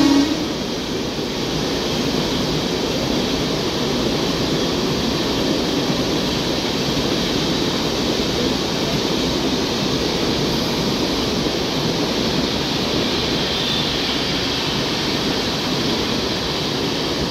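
Tejas Rajdhani Express coaches rolling past on the rails: a steady rush of wheel and rail noise that holds until the train's end. A train horn blast cuts off at the very start.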